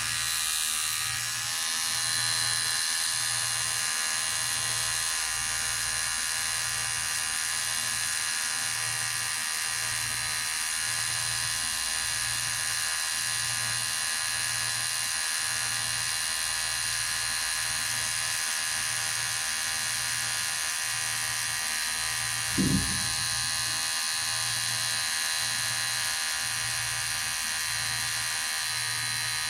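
Electric hair clipper running steadily with a high-pitched buzz, its low hum pulsing about once a second. A single brief thump about three quarters of the way through.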